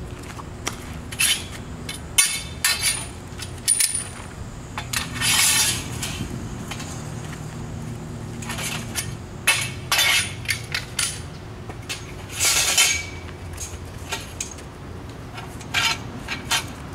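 Metal parts of a triathlon bike rack clanking and clinking together as it is handled: an irregular string of sharp knocks, a few ringing briefly, scattered throughout.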